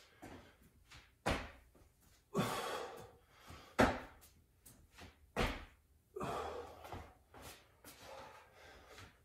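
Thuds of feet and hands landing on the floor during broad jumps and sprawls. The loudest landings come about a second, about three and a half seconds and about five and a half seconds in, with softer noise between them.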